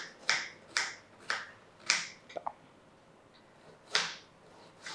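Knife chopping an onion into small pieces: four sharp cuts about half a second apart, then a pause and one more cut near the end.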